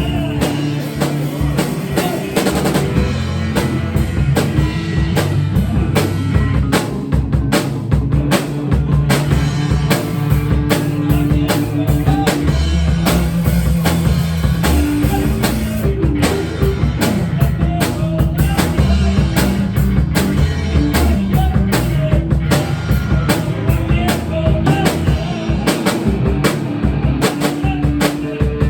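Rock music with a full drum kit, a steady beat and bass.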